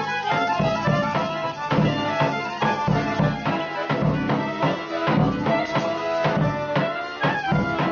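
Traditional folk-style music: a melody over a steady drum beat.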